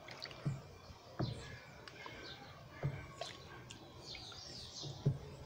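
Wooden stick stirring soapy liquid in a large plastic basin, with a few soft knocks as it strikes the side of the basin. Birds chirp faintly in the background.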